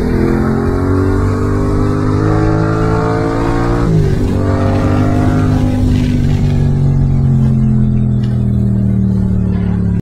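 Yamaha MT-07's 689 cc parallel-twin through a full Mivv aftermarket exhaust, heard on the move with wind noise. The engine note climbs under acceleration, drops sharply about four seconds in as it shifts up, then holds and falls slowly as the throttle eases off.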